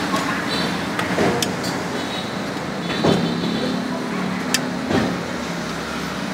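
Steady street traffic noise of passing motor vehicles, with a few sharp clicks and knocks.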